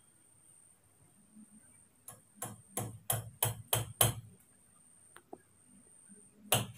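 Hammer knocking in a nail: about seven sharp, ringing strikes at roughly three a second, a pause, then another strike near the end.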